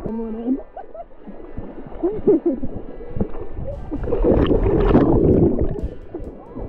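Lake water splashing and sloshing around a camera held at the waterline, stirred by swimmers moving beside it, with the heaviest splashing from about four seconds in.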